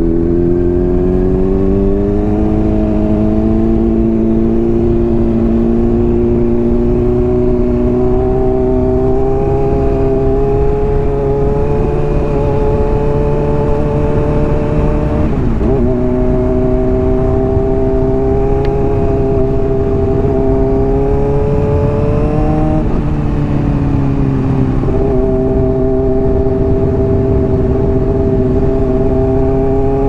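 Honda CBR600RR inline-four running through a Hotbodies Stinger slip-on exhaust under way, its note climbing slowly as it pulls. The pitch drops sharply at an upshift about halfway through and steps down again near three-quarters.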